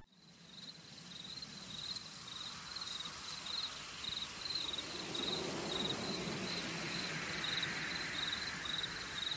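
Crickets chirping: a high chirp repeating evenly about three times a second over a steady hiss of night ambience, which swells a little partway through.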